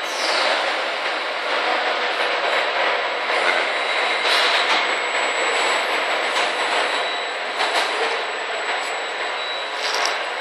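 Automatic tin can filling and capping line running: a steady mechanical din with irregular clicks and knocks, and a thin high steady whine over it.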